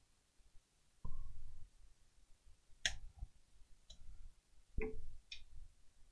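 A handful of separate light clicks and knocks, about six spread over several seconds, a couple with a brief ring: hands handling an open laptop and tools on a workbench.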